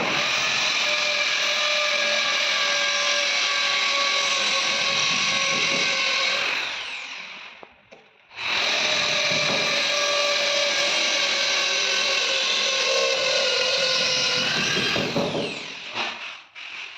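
Handheld electric drill running at full speed twice, each run about six seconds long and ending as the motor winds down.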